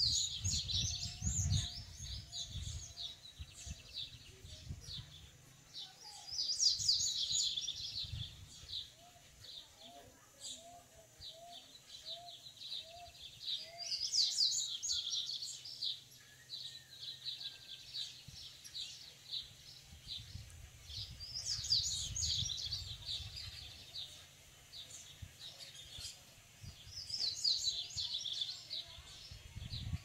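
A male papa-capim, a Sporophila seedeater, singing its fast twittering song in phrases of about two seconds, repeated five times roughly every six to seven seconds; the song of a male eager to breed with its female. A low rumble comes near the start and again about two-thirds through.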